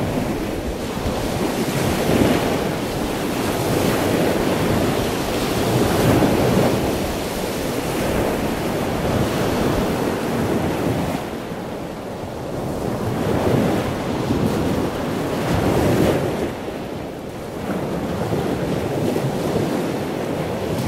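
Surf breaking on a beach, the wash of the waves swelling and easing every few seconds.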